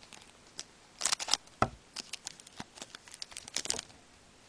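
Foil wrapper of a trading-card pack crinkling and tearing as it is opened and handled, in quick irregular crackles with a louder flurry about a second in and another near the end.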